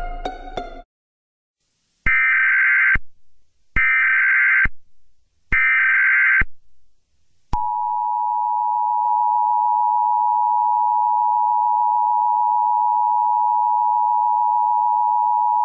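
Emergency Alert System tones: three short bursts of SAME header data, then the two-tone EAS attention signal (853 and 960 Hz together), held steady for about eight seconds.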